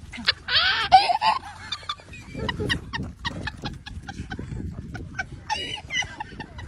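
An animal gives one loud, harsh call about half a second in, lasting about a second, followed by a scatter of short clicks and knocks.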